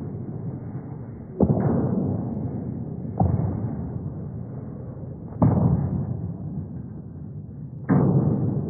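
Slowed-down found-object percussion: four heavy, booming hits about two seconds apart, each starting suddenly and dying away in a long drawn-out rumble.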